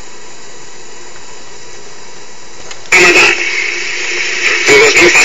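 Steady hiss, then about three seconds in, loud, harsh, distorted playback audio from a video clip cuts in abruptly.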